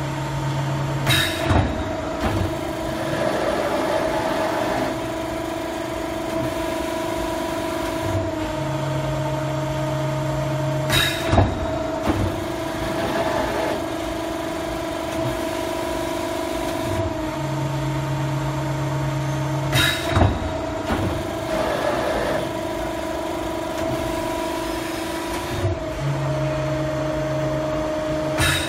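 A 125-ton, 4-metre CNC hydraulic press brake running through repeated cycles: a steady hydraulic hum, with a lower drone for a couple of seconds that ends in a sharp clunk, repeating about every nine seconds.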